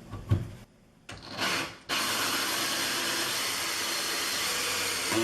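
Cordless drill spinning a 1-1/4 inch hole saw as it cuts into a wet cultured marble countertop: a steady cutting whir starts about two seconds in and stops abruptly at the end, after a few brief handling knocks.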